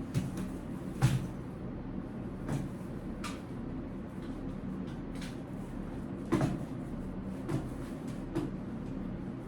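Scattered clicks and knocks of a baby stroller's frame, joints and latches being handled while it is being folded, the loudest about a second in and another about six seconds in, over a steady low hum.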